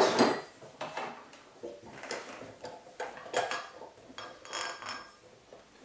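Scattered metal clinks and light knocks from a steel jeweller's stake and its vise-mounted stake holder being handled while the holder's T-handle set screw is loosened to take the stake off, with a short ringing tone about four and a half seconds in.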